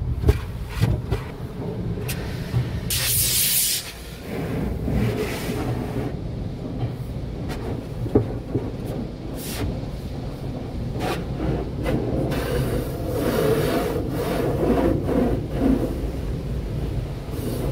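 Sonny's tunnel car wash heard from inside the car: hanging cloth strips and wash brushes rubbing and slapping over the body and glass with a steady low rumble. A hissing burst of water spray about three seconds in, and scattered knocks.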